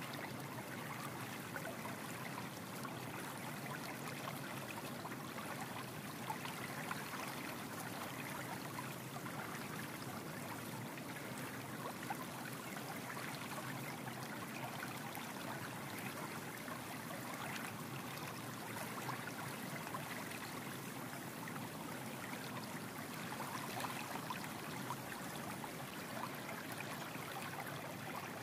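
Steady rushing noise, like a stream of running water, at an even level with no breaks.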